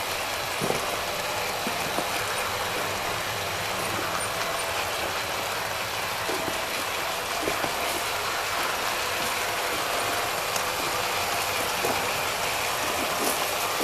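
Two Märklin gauge 1 model Crocodile electric locomotives hauling a model freight train on garden railway track: a steady running noise of motors and wheels on rail, with scattered clicks a few seconds apart.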